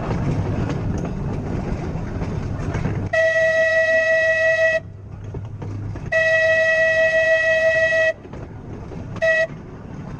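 Blackpool "Boat" tram 606 rumbling along the rails, then its horn sounds two long blasts and a short one, the opening of the long-long-short-long grade-crossing signal as the tram nears a road crossing.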